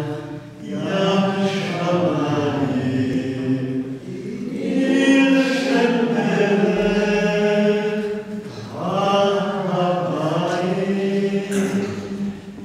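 A man singing a slow, unaccompanied chant in long held phrases, pausing briefly for breath about every four seconds, under a stone vault.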